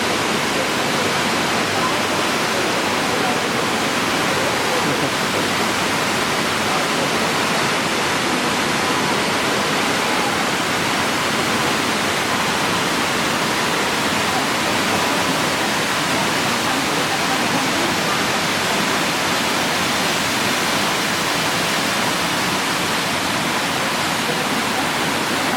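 Fukuroda Falls: the steady, even rush of a large waterfall's water crashing down, unchanging throughout.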